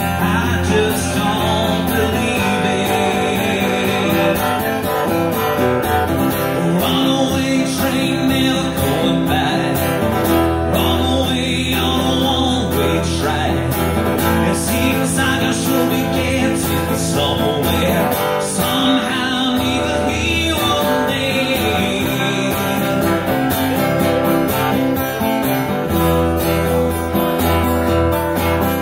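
Acoustic guitar strummed steadily, with a voice singing over parts of it.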